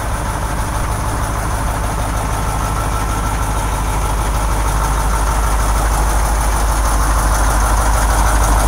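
KamAZ 6520 truck's V8 turbo-diesel engine idling steadily, growing slightly louder toward the end.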